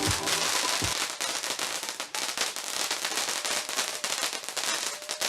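Fireworks crackling, a dense, rapid run of small pops. A song with a steady beat plays at the start and stops about a second in.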